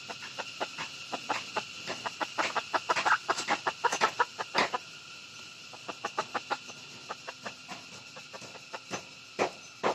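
Red junglefowl hen clucking to her chicks in a quick run of short clucks, several a second, which thin out about halfway through.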